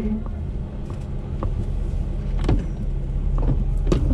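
Jeep engine running at a steady idle, with a few scattered knocks and clicks.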